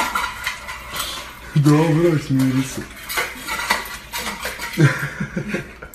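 A metal food bowl clanking and scraping on a tile floor as a puppy eats from it and pushes it along, in repeated short knocks. A low voice sounds briefly, about two seconds in.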